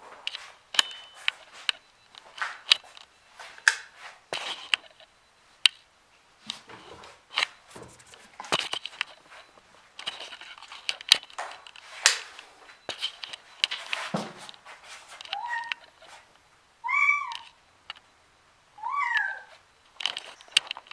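A young cat meowing four times in the last few seconds, short arching calls. Before that there is a run of scattered clicks, taps and scuffling.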